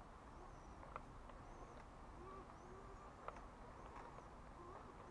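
Near silence outdoors, with faint distant bird calls, short rising and falling chirps, and two soft clicks.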